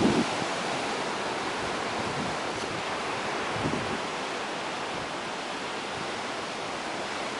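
Ocean surf washing in over a rocky shoreline: a steady hiss of breaking waves, with a brief low rumble at the very start.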